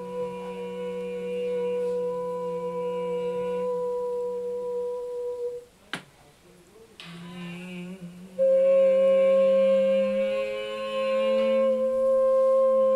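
Two singers holding long, wordless humming notes, one low and one high, blending into a steady drone. Just before the middle the sound cuts off with a click. Then the notes start again, the low one slowly rising, and a strong high note comes in about eight seconds in.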